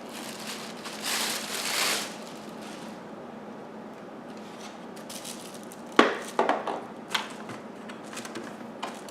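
Packaging and vacuum parts being handled: rustling about a second in, then a quick cluster of sharp clicks and knocks around six seconds in.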